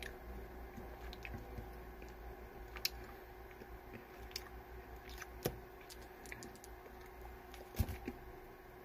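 Faint mouth sounds of someone chewing a mouthful of frozen Mike and Ike chewy candies, with scattered sharp clicks and smacks, the loudest about three, five and a half, and eight seconds in, over a faint steady hum.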